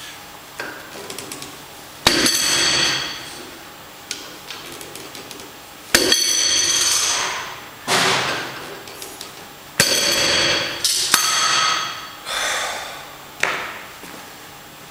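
Stack of iron weight plates on a loading pin clanking and ringing as it is lifted with a Rolling Thunder grip handle and set back down. Loud sharp clanks several times, each followed by about a second of ringing before it fades.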